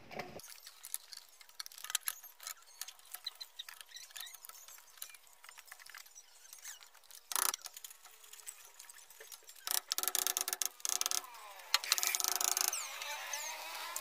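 Small clicks and taps of a screwdriver and wires working in a metal breaker panel, with louder scraping stretches about ten and twelve seconds in and brief squeaks near the end.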